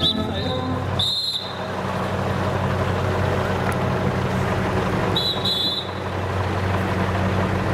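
A motor vehicle's engine running steadily with a low hum, under street noise. Two short high squeals or whistle notes break through, about a second in and again about five seconds in.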